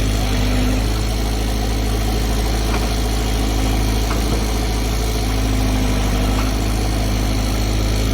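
Tata Hitachi floating excavator's diesel engine running steadily at an even pitch, with a few faint ticks over the drone.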